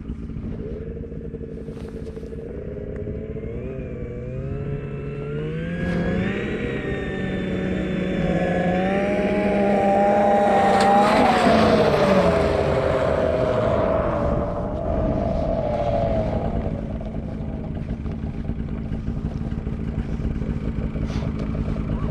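Two-stroke snowmobile engine climbing in pitch over about ten seconds as it speeds up. It is loudest about halfway through, then the pitch drops quickly and it runs on steadier at a lower pitch.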